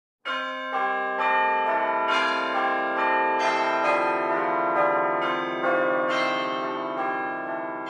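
Church bells ringing a peal: a run of struck bell notes at about two strikes a second, each ringing on into the next, fading out near the end.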